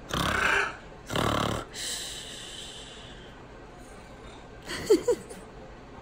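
Scarlet macaw making two loud, breathy rasping huffs in the first second and a half, then a fainter hiss, and two short smacking clicks about five seconds in.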